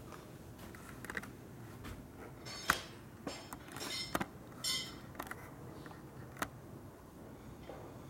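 Scattered light clicks and knocks of hands and parts being handled in a workshop, the sharpest about a third of the way in, with a brief rattle just past the middle.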